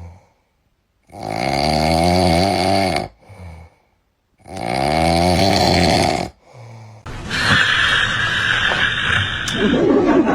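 A person snoring loudly: two long, drawn-out snores about three seconds apart, each rising in pitch and followed by a short weaker breath. About seven seconds in the snoring gives way abruptly to a dense, steady noise.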